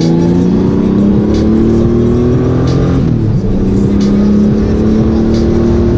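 Honda Gold Wing motorcycle engine under way, accelerating with its pitch rising for about three seconds, then dropping a step about halfway through and holding nearly steady.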